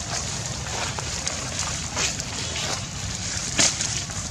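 Outdoor ambience dominated by a steady wind rumble on the microphone, with two brief sharp crackles, about two seconds and about three and a half seconds in, the second the louder.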